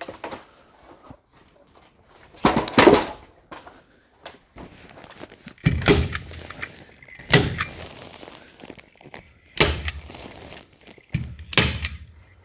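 Manual staple gun firing staples through plastic vapor-barrier sheeting: about five loud, sharp thunks, one every second and a half to three seconds.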